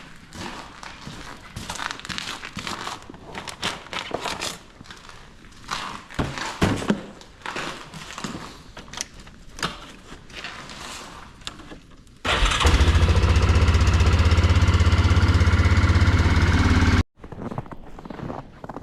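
Scattered crackles and knocks, then an engine starts abruptly about twelve seconds in. It runs loud and steady at an even pitch for about five seconds and cuts off sharply, followed by more crackles.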